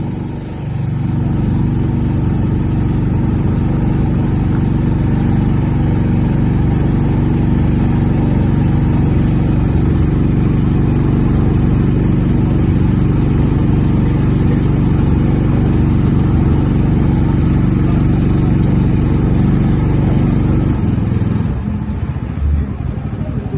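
Boat engine running at a steady drone, which drops away suddenly near the end.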